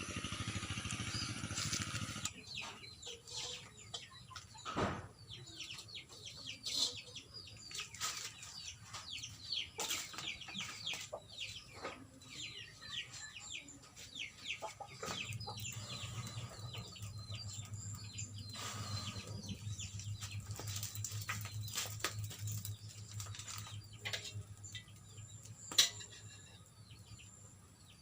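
Chickens clucking and chirping: many short falling chirps, thickest in the first half. A low steady hum joins about halfway through.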